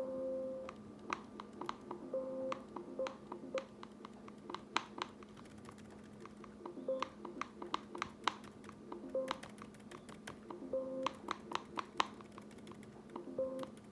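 Faulty loudspeaker popping and crackling with irregular sharp clicks, while the music it plays keeps cutting in and out over a steady hum.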